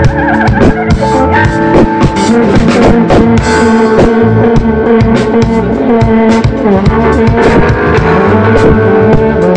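Live band playing loudly: a drum kit keeping a steady beat under guitar and bass, with sustained held notes above.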